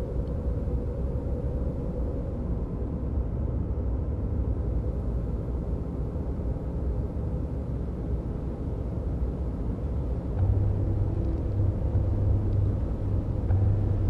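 Low, steady rumble of a moving car's engine and road noise heard from inside the cabin, growing louder and more uneven from about ten seconds in.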